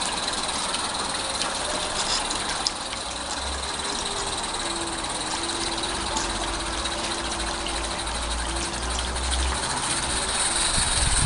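A 16mm-scale garden railway train running on the track, a steady hissing rattle, with a faint steady tone for about four seconds midway.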